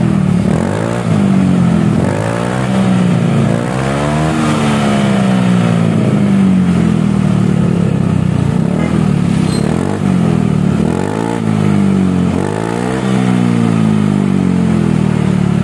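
Honda Scoopy scooter's single-cylinder four-stroke engine revved several times through an SKR aftermarket daily-use muffler, the pitch climbing and dropping back with each blip, the highest about four seconds in. The exhaust note is soft, not too blaring.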